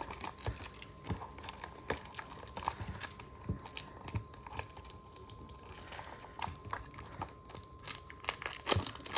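Thin plastic wrapper around a die-cast toy car crinkling and crackling irregularly as hands work at getting it open.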